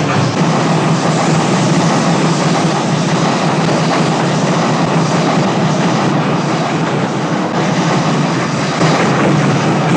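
A steady, loud rumble of a running vehicle, with no clear beat or change in pitch.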